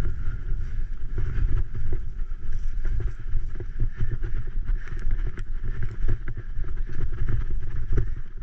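Wind buffeting the microphone while a Graziella folding bike bounces fast down a bumpy grassy trail, its frame and parts rattling with frequent sharp knocks over the ruts.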